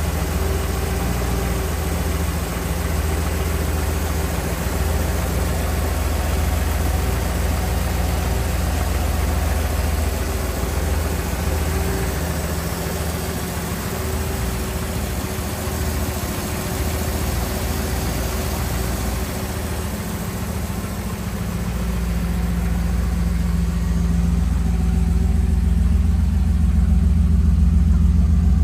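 Holden 308 V8 engine idling steadily, getting somewhat louder over the last several seconds.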